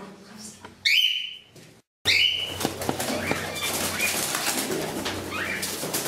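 Cockatiels giving short, shrill calls, three loud ones in the first two seconds, then a flurry of flapping wings with more calls over it as the birds take off around the room.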